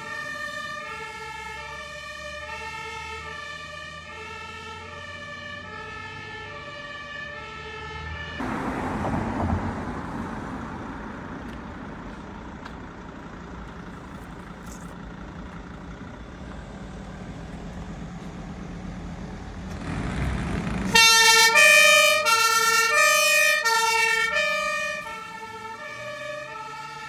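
German fire engine two-tone siren sounding its alternating high-low call, which fades out after about eight seconds under the rushing engine and tyre noise of a heavy vehicle driving past. About 21 s in a second two-tone siren starts close by, much louder, and keeps alternating.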